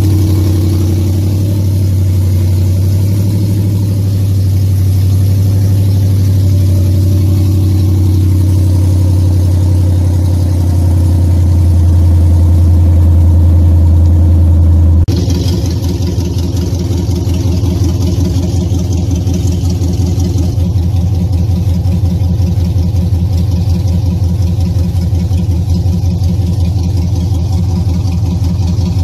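Dodge Challenger's engine idling steadily, heard from inside the cabin, with a strong low hum. About halfway through, the sound changes abruptly to a slightly quieter idle with a fine, even pulse.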